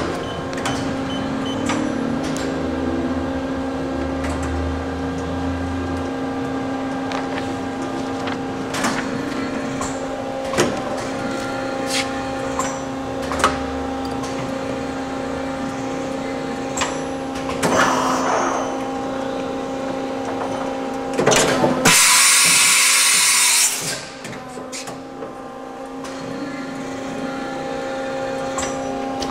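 1983 Matsuura MC-760-V2 CNC vertical machining center running under power: a steady machine hum with scattered clicks. About 22 seconds in there is a loud hiss lasting about two seconds, after which the hum briefly drops away and comes back.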